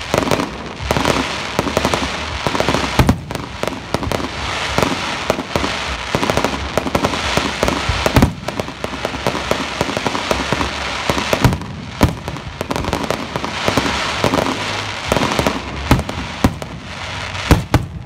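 Fireworks display barrage: many loud shell bursts in quick succession over a dense, continuous crackle of crackling stars falling.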